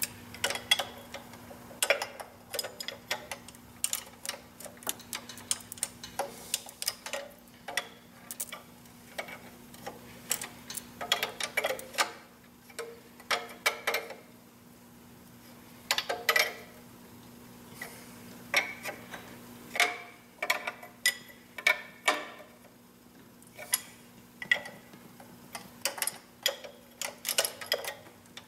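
Irregular metallic clicks and clinks of a wrench on the fuel injection line nuts of an 8.3L Cummins diesel, closing the lines back up after bleeding air out of them, over a steady low hum.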